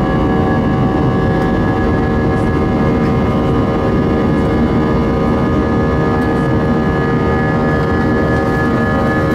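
Airbus A320 cabin during the climb after takeoff: steady jet engine and airflow noise with several constant whining tones above it, unchanging throughout.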